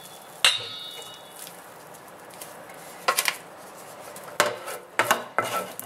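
A wooden spoon scrapes sticky cooked cassava dough out of a stainless steel pan. About half a second in there is one ringing metal clank from the pan. A run of short scrapes and knocks comes in the second half.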